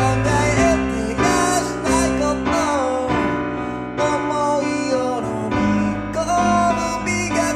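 Kawai piano played in a flowing chordal accompaniment, with a voice singing a sliding melody over it.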